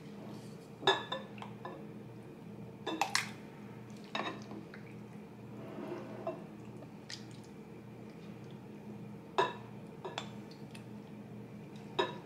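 A serving spoon clinking and knocking against a glass bowl and a stemmed glass cup as shrimp cocktail is ladled out: several sharp clinks spread a few seconds apart, with a softer wet scraping near the middle.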